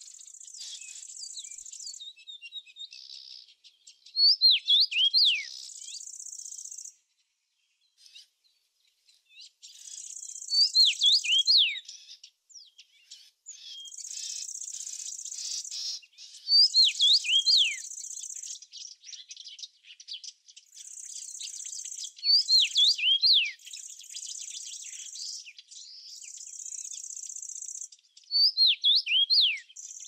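A songbird singing the same short phrase of quick down-slurred whistles about every six seconds, five times, over a high, steady insect trill that comes and goes in spells of a second or two.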